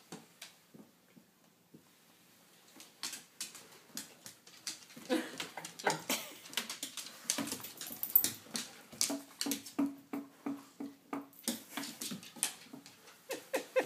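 A border collie and a cat play-fighting on a hardwood floor: a busy scuffle of quick taps and knocks. From the middle on, the dog adds short whining sounds in quick repeats.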